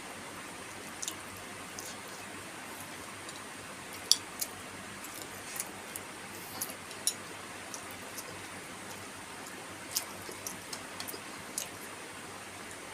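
Close-up eating sounds: irregular wet clicks and smacks of chewing and lips, one or two much sharper than the rest, over a steady hiss.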